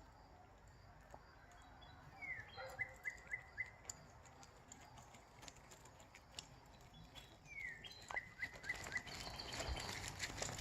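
A bird calling twice, each call a short falling note followed by a quick run of five or six short, even notes. Scattered light ticks and rustles grow busier near the end.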